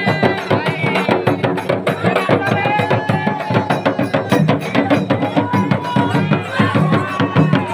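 Live folk drumming on large frame drums, fast steady strokes, with a held, slowly gliding melody line above the beat.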